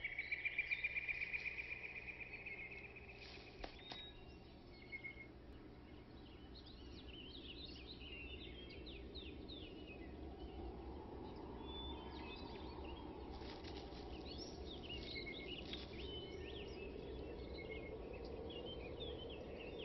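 Quiet woodland ambience: many short bird chirps and calls over a faint low hiss, opening with a fast pulsing trill that fades out about three seconds in. A few faint clicks come around four and five seconds in, and a soft swell of sound rises through the second half.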